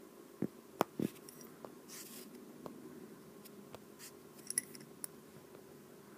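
Stylus tapping and sliding on a tablet screen while writing: a few sharp light taps in the first second, faint scratchy strokes after, and a quick cluster of taps near the end.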